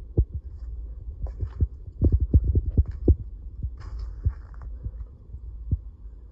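Low rumble with irregular dull thumps from a phone microphone being handled and jostled as it is carried, the thumps bunching together around the middle.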